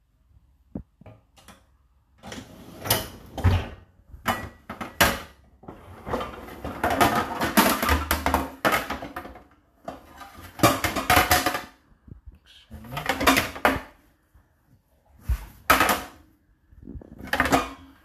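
Pans, plates and a plastic tray being handled in a dishwasher's racks: a run of clattering and scraping bursts with sharp knocks, the longest about halfway through.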